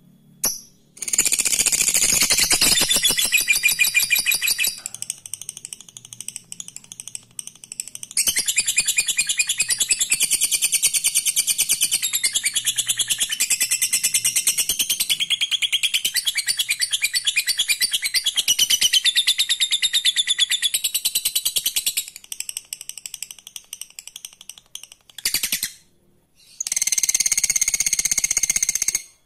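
Lovebird giving its long 'ngekek' chatter: a very fast, high-pitched rattling trill in long bouts. The first bout lasts about four seconds, the second runs for about fourteen seconds, and a short bout comes near the end.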